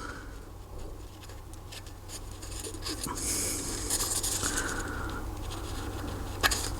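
Quiet scratching and rubbing as blue silicone gasket sealant is squeezed from its tube, with no nozzle, and smeared onto a small metal alcohol stove. A hissy stretch comes about halfway through, and a sharp click sounds near the end.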